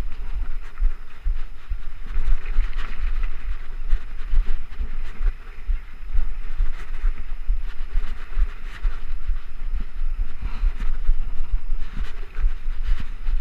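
2013 Trek Rumblefish Pro mountain bike ridden over a dirt singletrack, picked up by a chest-mounted action camera: knobby tyres rolling on dirt, small rattles and knocks from the bike, and a constant uneven low rumble of wind and bumps on the microphone.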